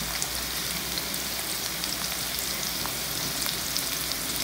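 Diced onion sautéing in olive oil in a pan: a steady sizzle with scattered small crackles.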